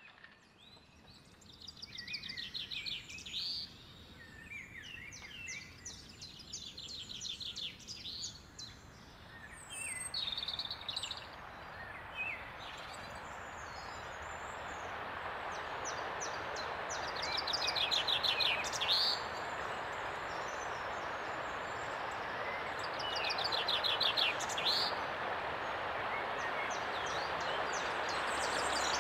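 Songbirds singing repeated rapid trills, joined about ten seconds in by the rush of a rocky mountain stream that grows steadily louder.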